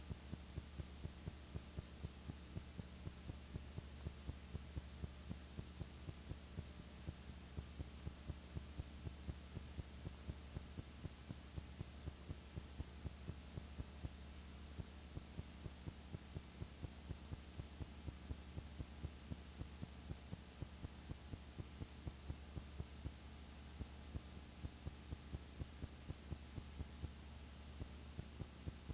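Steady low electrical hum with a sharp click repeating evenly about three times a second.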